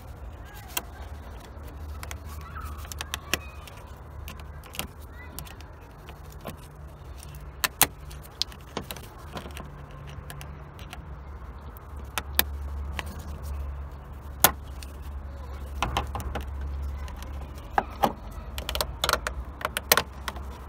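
Irregular sharp metallic clicks and clinks of hand tools and a hose clamp while the upper radiator hose is pushed on and clamped in a car's engine bay, over a steady low hum.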